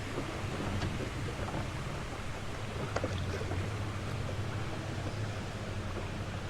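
Wind blowing on the microphone and water moving around a small fishing boat over a steady low hum, with a few faint clicks.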